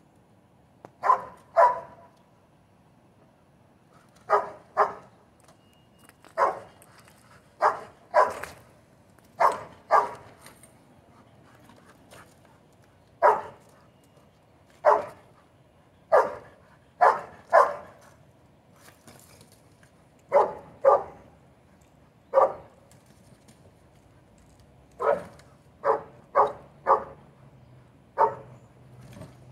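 A search-and-rescue dog barking repeatedly, about two dozen sharp barks singly and in quick pairs with short pauses between. The dog holds its place at a gap in a concrete rubble pile while barking, typical of a trained bark alert on a person hidden in the rubble.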